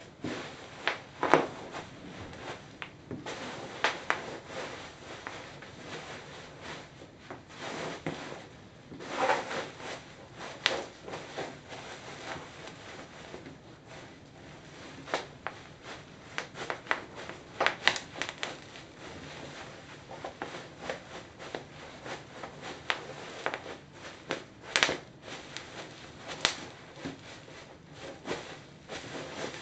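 Bubble wrap crinkling and rustling as it is trampled underfoot in Birkenstock sandals, with irregular sharp pops and cracks of bubbles bursting. A few pops stand out louder, about a second in and around nine, eighteen and twenty-five seconds in.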